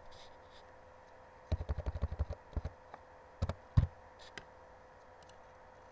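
Computer keyboard being typed on: a quick run of about a dozen keystrokes about one and a half seconds in, then two louder single taps just before the four-second mark and a few faint ones after.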